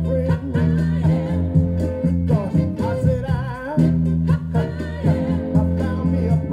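A vocal record playing from a 7-inch 45 rpm single on a turntable: singing over guitar and a steady bass line.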